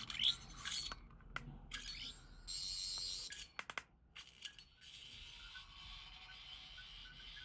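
Fifteenth Doctor sonic screwdriver toy playing its electronic sonic sound effect through its small speaker: a rising whirr, then high-pitched warbling in two stretches, with a few sharp clicks from the toy's buttons and metal body near the start.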